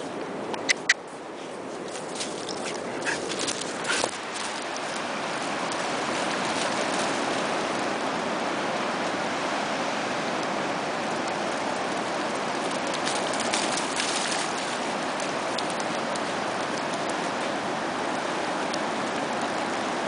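Surf washing in on a sandy beach: a steady rushing that builds over the first few seconds and then holds. Two short high chirps come about a second in, and a patter of splashes comes about two thirds of the way through as a dog runs through the shallow water.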